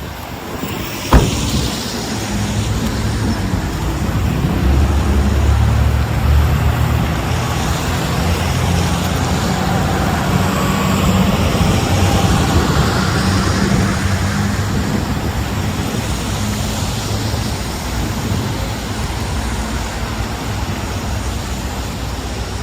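City street traffic with a motor vehicle's engine running close by: a low drone that builds over the first several seconds and slowly eases off. A sharp knock sounds about a second in.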